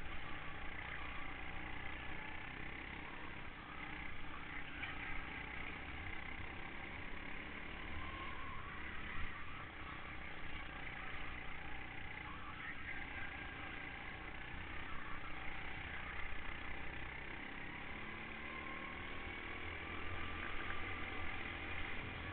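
Go-kart engine running under way, heard from the kart itself, its pitch rising and falling with the throttle through the corners.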